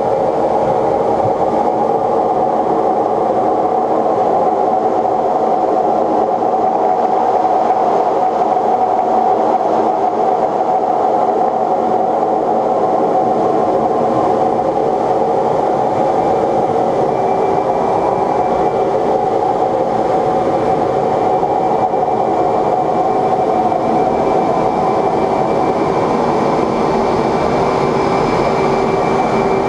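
Steady cockpit noise of an F/A-18 in flight: a continuous drone of the engines and rushing air with a humming whine. A higher whining tone joins a little past halfway.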